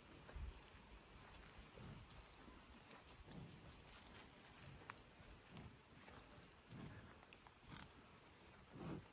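Faint, steady chirping of crickets in a high, even band, with a few soft low thumps, the loudest near the end.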